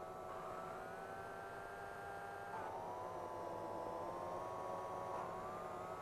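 A steady, siren-like whine of several tones sounding together. It slides up in pitch about a second in, drops about halfway through and rises again near the end.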